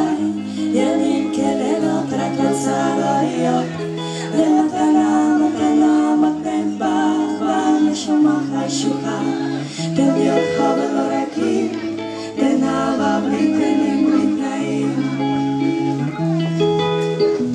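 A woman singing into a microphone with a band accompanying her, the music running without a break.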